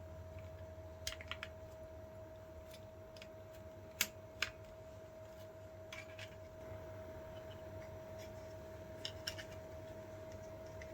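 Scattered light clicks and taps of small tools on the plastic and metal parts of an electronic door lock being taken apart, a few seconds apart, over a steady faint hum with a constant tone.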